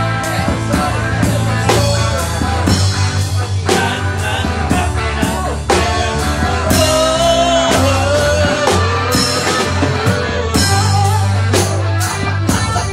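Live rock band jamming, played loud: drum kit, heavy bass and guitar, with a melody line bending up and down about halfway through.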